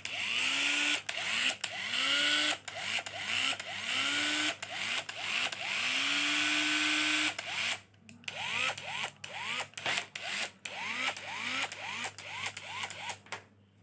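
Hoki 802 corded electric screwdriver's brushed motor switched on and off in short bursts, each winding up in pitch as the motor spins up. One longer run comes about halfway through, then quicker, shorter bursts, about two a second, in the second half.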